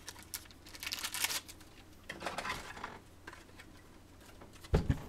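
Plastic card sleeves rustling as trading cards are slid into them, in two short stretches, then a dull thump near the end.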